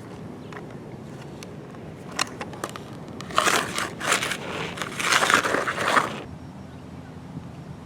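Small rocks and gravel crunching and scraping: a few scattered clicks, then two gritty bursts of about a second each, as loose stones are scooped or shifted.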